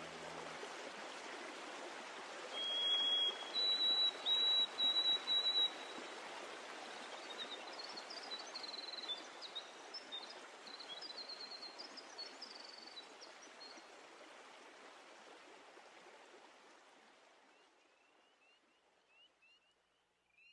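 Steady rushing noise like flowing water, with loud high whistled calls for a few seconds and scattered chirping after. The rushing fades out near the end.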